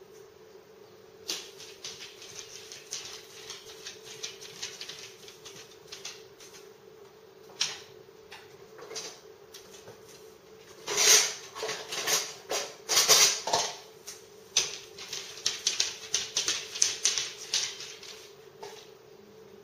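A dog's claws clicking and scrabbling on the hard kitchen floor and counter as it rears up to get at the countertop, with a louder cluster of scuffling and knocking a little past the middle. A steady appliance hum runs underneath.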